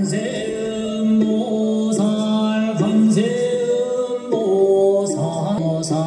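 Music: a voice singing a slow chant in long held notes that slide from one pitch to the next.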